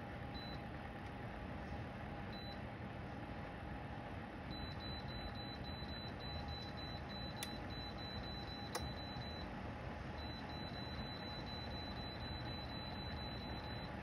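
Dreo ceramic tower space heater's fan blowing steadily with a faint steady whine. About four seconds in, a rapid run of short high beeps starts at about four a second, pauses briefly near the middle and resumes, as the display's temperature setting steps through its values. A couple of light clicks are heard.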